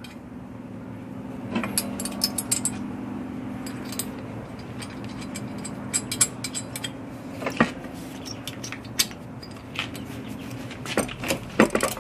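Scattered light metal clinks and rattles as an exhaust manifold and its nuts are handled and fitted against an engine's cylinder head, over a steady low hum that stops shortly before a burst of clinks near the end.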